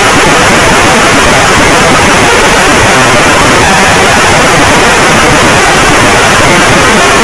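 Very loud, harsh static-like noise, steady and unbroken, spread evenly from low rumble to high hiss.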